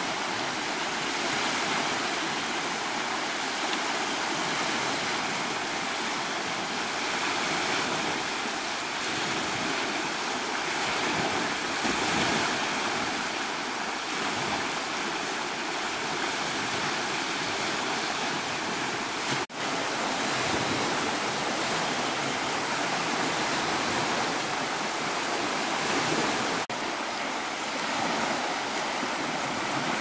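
Steady rushing water noise, with two brief dips where the sound drops out for an instant.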